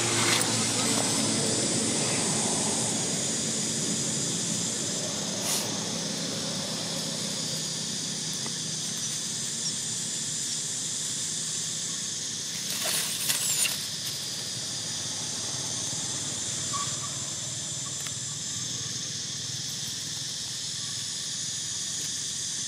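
Steady outdoor insect chorus, a high even drone of several tones, over open dry woodland. A low drone fades out over the first few seconds, and a brief cluster of sharp clicks comes about 13 seconds in.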